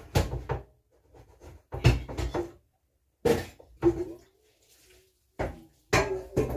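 Metal stovetop kettle and its lid clanking as they are handled and set down on a gas stove, about half a dozen separate knocks a second or so apart.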